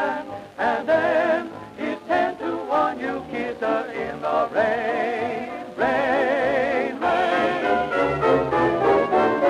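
Late-1920s dance band music from a 78 rpm record: a quick run of melody notes, then long held chords with wide vibrato from about halfway in.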